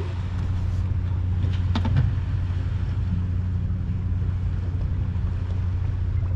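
A fishing boat's engine running steadily, a low even drone heard from inside the wheelhouse, with a couple of light clicks a little under two seconds in.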